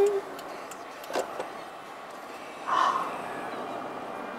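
Steady road and wind noise inside a moving car, with a faint click about a second in and a brief louder sound near three seconds in.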